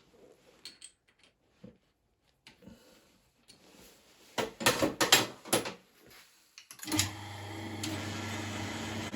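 Clicks and a quick cluster of sharp metal knocks, loudest about four and a half to five and a half seconds in, as the lathe is set up. About seven seconds in, a 9-inch South Bend lathe starts and runs with a steady hum, turning a boring head for the last two-thousandths boring pass.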